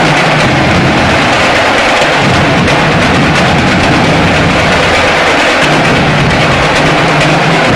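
Marching drum line playing a cadence on snare drums, a dense, loud and unbroken stream of drum hits.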